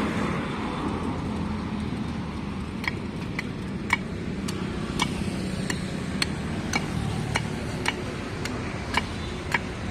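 Steady road traffic, and from about three seconds in a regular sharp knocking, about two strokes a second: a blade chopping wooden sticks against a board.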